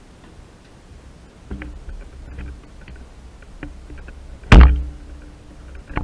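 An airsoft gun fires once, a single loud sharp shot about four and a half seconds in that rings briefly, after quieter knocks and shuffling.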